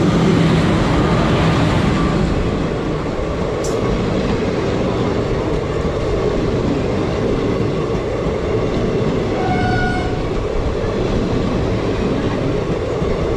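Two trains passing each other at speed: the steady loud rush and rumble of an electric locomotive and its passenger coaches running by on the adjacent track, mixed with the wheel noise of the train being ridden. A short tone sounds about ten seconds in.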